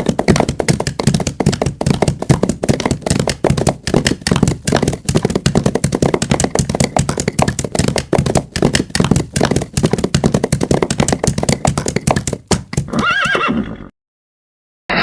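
Horses galloping: a dense, fast run of hoofbeats. Near the end a horse whinnies, then the sound cuts off suddenly about a second before the end.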